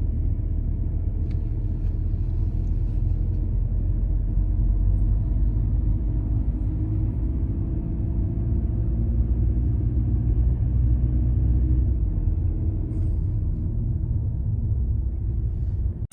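Steady low rumble of a car being driven, engine and road noise, which cuts off suddenly at the end.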